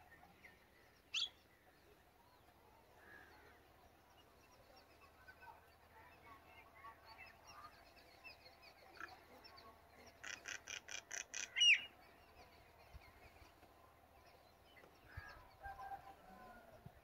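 Birds chirping faintly. There is one sharp rising call about a second in, and near the middle a quick run of about eight high, evenly spaced calls, the loudest sound.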